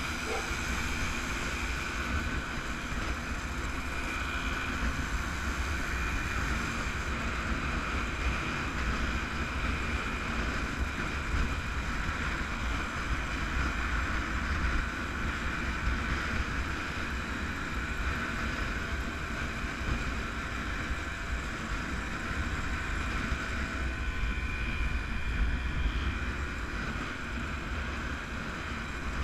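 Wind rushing over the microphone of a camera riding on a moving motorcycle, with the motorcycle engines running steadily underneath.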